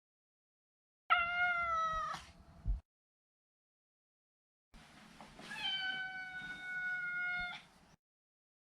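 A Maine Coon cat meowing twice: first a meow of about a second, then a few seconds later a longer, steady meow of about two seconds. A brief soft knock follows the first meow.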